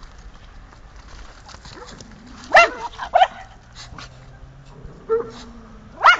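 A dog barking during play: a few short, sharp barks, the loudest about two and a half seconds in and another at the end.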